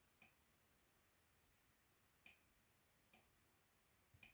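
Four faint computer mouse clicks at uneven intervals, over near silence.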